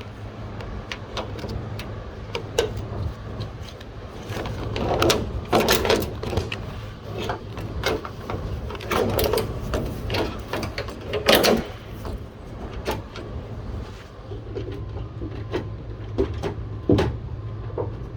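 Irregular clicks, knocks and rattles of plastic and metal parts as the sliding door's handle release cables are unclipped and worked free, in clusters with the loudest about five, nine and eleven seconds in, over a steady low hum.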